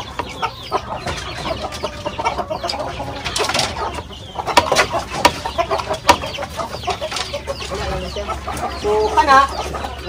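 Shamo and asil cross gamefowl clucking in their pens, with a few sharp clicks in the middle.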